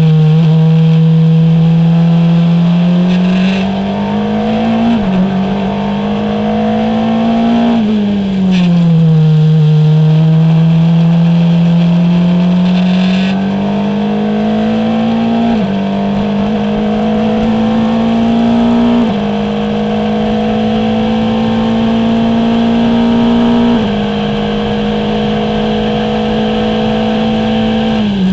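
Formula Renault 2.0 single-seater's four-cylinder engine at racing speed, its note climbing under acceleration and stepping at each gear change. Around eight seconds in the pitch falls away as the car slows, then it builds again through several more shifts.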